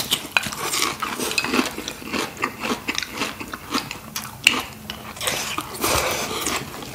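Close-up eating sounds: a person chewing instant ramen noodles eaten with chopsticks from a small bowl, with many short mouth clicks and a longer slurp about six seconds in.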